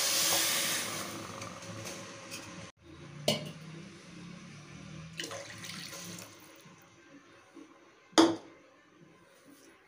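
Water poured from a plastic cup onto sugar in a steel pan, splashing for about the first three seconds, to start a sugar syrup. After that it is quieter, with two sharp knocks, the louder one near the end.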